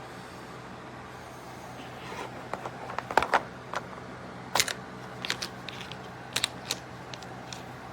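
Light clicks and taps of plastic pieces being handled, likely a kids' plastic fork, spoon and snap-shut storage case. They come irregularly from about two seconds in, loudest near the middle, over a steady low hum.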